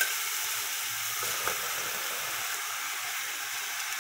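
Chicken pieces sizzling as they start to fry in hot oil in an aluminium pot, a steady high hiss, with a couple of light taps as more pieces are laid in, once at the start and again about a second and a half in.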